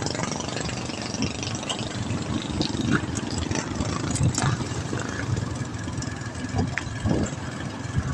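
Road traffic noise recorded from a moving bicycle: motor-vehicle engines running, with a steady rush of wind on the microphone.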